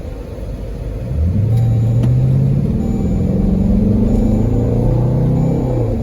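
Dodge Durango's 5.7-litre Hemi V8, breathing through aftermarket AFE shorty headers and a cold air intake, accelerating. The engine note gets louder about a second in, rises in pitch for several seconds, then drops back near the end.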